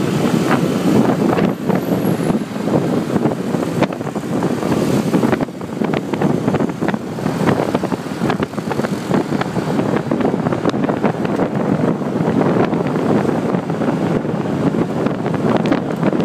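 Wind buffeting the microphone of a moving motor scooter, over the scooter's engine and road noise.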